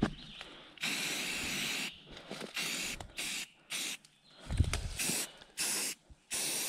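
Aerosol spray-paint can spraying paint onto a tree branch: one long hiss of about a second, then a run of six or so short bursts. A low thump about four and a half seconds in.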